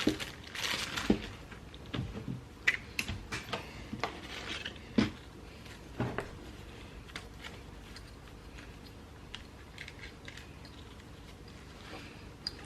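Light clicks, taps and a few sharper knocks of small engine parts and packaging being handled on a workbench, busiest in the first six seconds and sparse after that.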